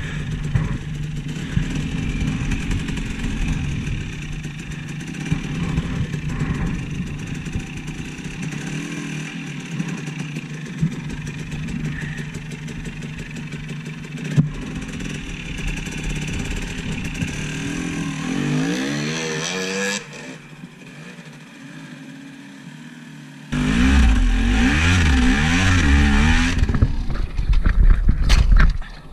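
Off-road vehicle engine pulling in low gear. The revs rise about eighteen seconds in, it goes quieter for about three seconds, then runs loud again until it drops away just before the end.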